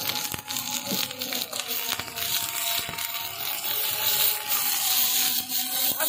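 Ginger paste and sliced onions sizzling in oil in a miniature iron kadai over an open wood fire, with a steady hiss and many small crackles and pops.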